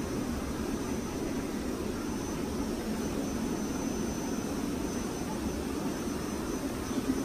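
Steady, even hum and hiss of a room full of running aquarium equipment: air pumps driving air-stone bubblers and sponge filters, with a faint high steady whine.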